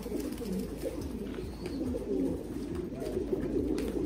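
Many domestic Titan pigeons cooing at once, their low coos overlapping into a continuous chorus.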